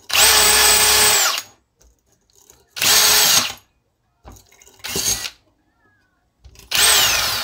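Cordless drill spinning a wire brush wheel against a chainsaw crankcase, scrubbing off old gasket material, in four short bursts; the first is the longest, and the motor's whine drops away each time it stops.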